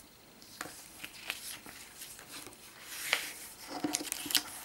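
A glossy paper photobook being handled and leafed through: soft rustles and page swishes with small taps, busiest in the second half.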